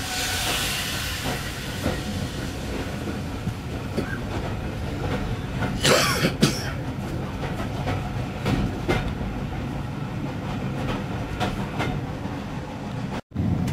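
Inside a moving heritage railway passenger coach: the steady rumble of the wheels with irregular clicks and knocks over the rail joints, loudest about six seconds in, as another train passes close alongside. A hiss at the start comes from a steam locomotive passing by the window.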